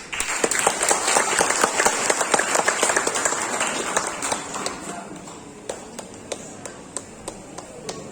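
Audience applauding: a dense burst of clapping that thins after about four seconds to a few scattered claps.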